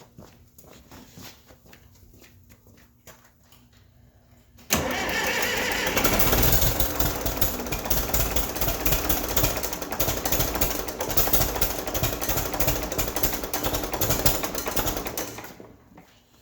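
Starter motor cranking the Case 800's diesel engine for about ten seconds without it catching: a sudden whine at first, then a rapid, even chugging. The fuel system has just been bled, and the owner suspects injectors 1 and 2 are opening too early.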